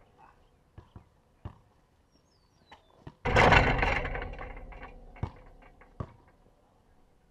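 A basketball hits the hoop about three seconds in, a loud bang that rings on and dies away over about two seconds, picked up through the backboard the camera is fixed to. Scattered short taps come before and after it.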